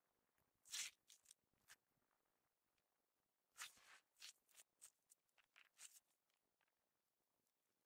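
Clear purple glitter slime squeezed and folded in the hands, giving short sticky squishes in irregular bursts, loudest about a second in and again in a run from about three and a half to six seconds in.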